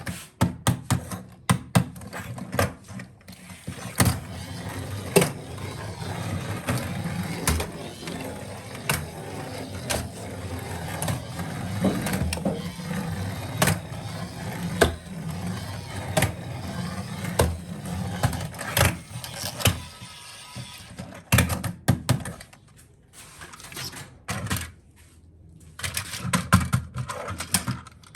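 Plastic toy parts being handled and clicked together: a string of sharp clicks and knocks over a steady low rumble that drops away about twenty seconds in.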